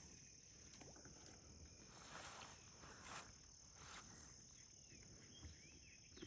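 Faint, steady high-pitched chirring of insects, with a few soft rustling swells partway through.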